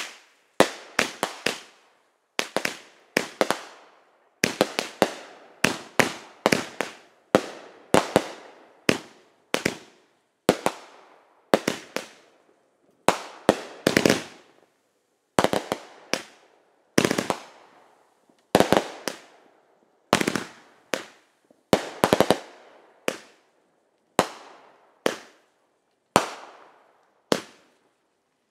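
Aerial fireworks going off overhead: a steady string of sharp bangs, about one or two a second, each trailing off in an echo.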